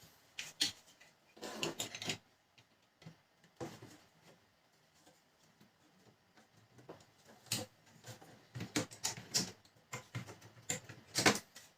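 Laser printer parts being handled and fitted back together by hand: irregular clicks, taps and light knocks of plastic pieces, in short clusters with pauses between, busiest in the second half.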